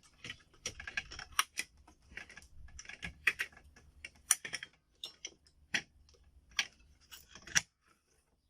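RAM memory modules being pressed down and reseated in a motherboard's slots: a run of irregular sharp clicks and taps that stops about a second before the end.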